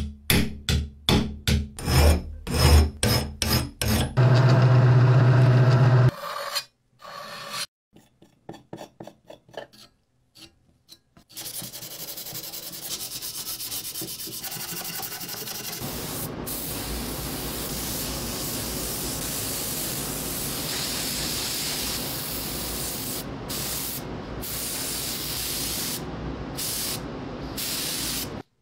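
Metalworking hand-tool sounds: a quick run of knocks and taps, a steady hum for about two seconds, scattered clicks, then a long steady scraping, rasping noise.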